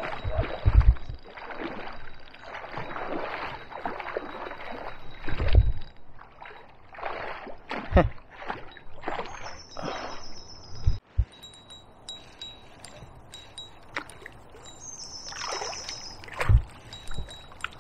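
Water splashing and swirling as a hooked pike thrashes near the surface while it is played on the rod, with several heavy knocks and rumbles on the microphone.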